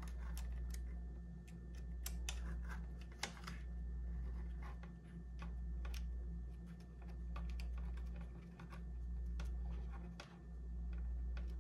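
Small screwdriver turning a tiny screw out of a plastic drone propeller hub: scattered light clicks and ticks of metal on plastic, over a steady low hum.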